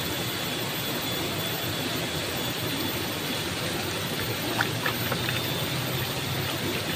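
Steady rushing of flowing river water, with a few faint light clicks a little past halfway.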